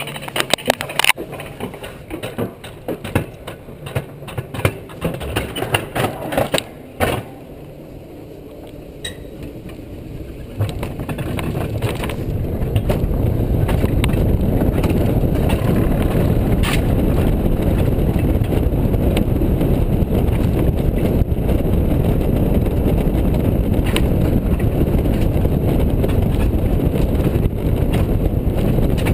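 Alpine coaster sled on its steel tube rail. It clatters and clicks unevenly for the first several seconds, goes briefly quieter, then from about eleven seconds in makes a loud, steady rumble with a rush of wind as it speeds downhill.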